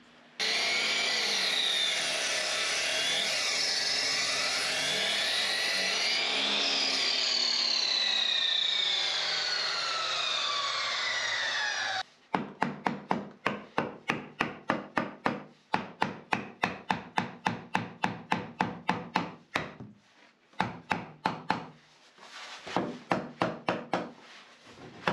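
Wood being sawn, a steady rasping with sweeping pitch for about twelve seconds. Then a hammer knocks a wooden block into a tight fit against the frame, with quick regular blows about four a second, tailing off into a few scattered taps.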